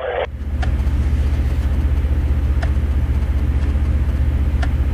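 An engine running steadily, a low hum with a fast, even throb. A few faint clicks sound about every second or two.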